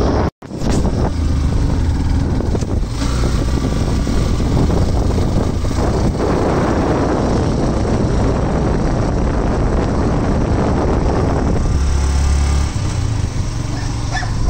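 Wind rushing and buffeting over the microphone on a moving motorbike, with the engine and road noise running underneath. The sound cuts out for an instant just after the start.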